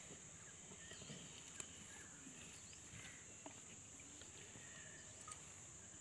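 Faint outdoor ambience: a steady high insect drone with scattered short bird chirps, and a few soft clicks about one and a half, three and a half, and five seconds in.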